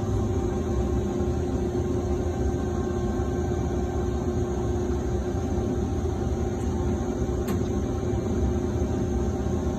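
HEM VT140HA-60 vertical band saw running with no cut under way: a steady machine hum with a constant mid tone over a low rumble, while its saw frame slowly tilts over.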